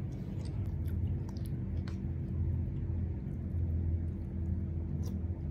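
Steady low electric hum, with a few faint clinks of a metal spoon against a ceramic bowl.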